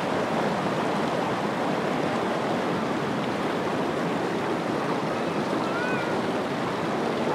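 Shallow mountain river rushing over boulders and stony riffles: a steady, even rush of water.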